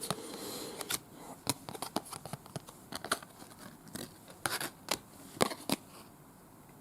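Trading cards being handled and flipped through, with a rustling slide at first and then a string of sharp clicks and snaps as the cards are flicked one by one.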